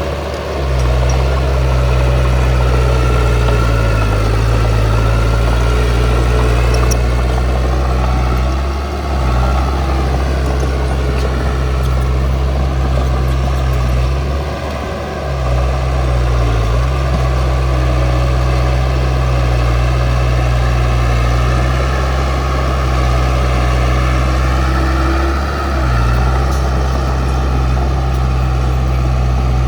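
Heavy earthmoving machinery engine running steadily at a low pitch, with a few brief drops in level.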